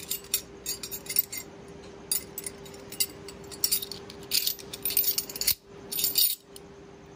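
Steel chain links, horseshoes and a steel ring clinking and rattling against each other in irregular bursts as a horseshoe ring puzzle is twisted and worked by hand.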